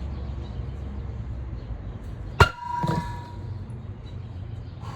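A single sharp metallic clang about halfway through, ringing briefly, then a lighter second clank: a steel bulldozer wheel being handled as a workout weight knocks against metal. A low steady rumble runs underneath.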